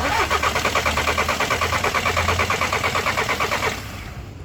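Starter motor cranking a Skoda diesel engine in steady rhythmic pulses for nearly four seconds, then stopping. This is the first crank after a replacement fuel injector has been fitted.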